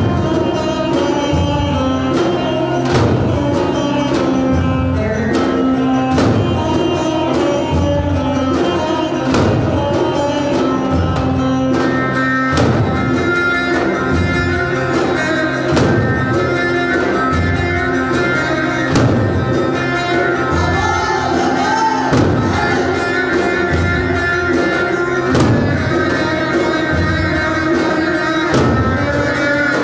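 Loud, amplified Turkish folk dance tune (oyun havası): a davul drum beats steadily under a sustained melody that runs without a break.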